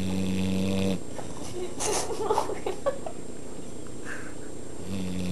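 Pit bull snoring loudly: a long, low buzzing snore that ends about a second in, then another that starts near the end, with a brief scratchy noise in between.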